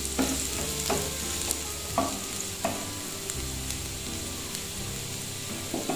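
Chopped garlic sizzling in hot oil in a non-stick frying pan, a steady frying hiss, with a few sharp scrapes and taps from a wooden spatula stirring it in the first half. The garlic is cooking until it turns light brown.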